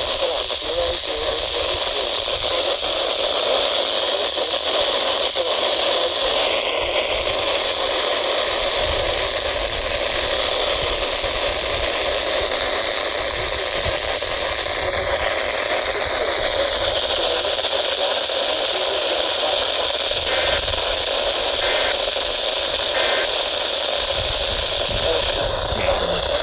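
Steady hiss of radio static from a NOAA Weather Radio receiver.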